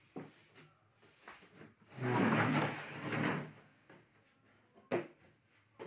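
Kitchen cabinet hardware being worked: a sliding run of about a second and a half, with a click just after the start and two sharp clicks near the end.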